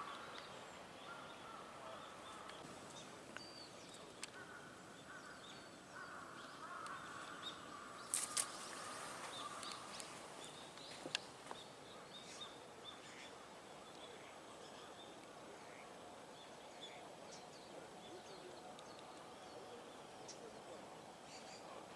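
Faint outdoor park ambience with scattered distant small-bird calls and a low background murmur; a few sharp clicks sound about eight seconds in and again about eleven seconds in.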